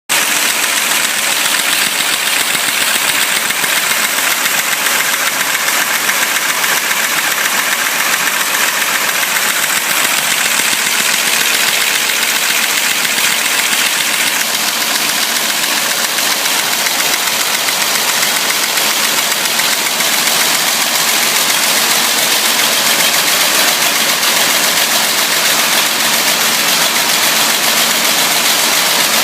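High-speed automatic can body welding machine, rated at 450 cans a minute, running continuously: a steady, bright mechanical noise with much hiss and no pauses.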